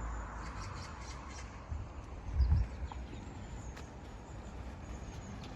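Footsteps on a forest path, with a heavier low thud about halfway through, over a steady low rumble. Faint, scattered bird chirps sound high above.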